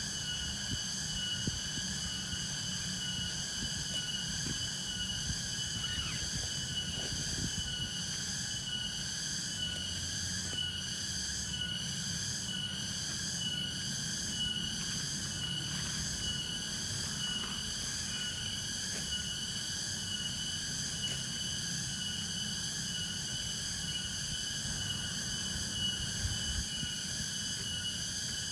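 Night chorus of insects such as crickets: many steady, high-pitched trills at different pitches, one pulsing rapidly, over a faint low rumble.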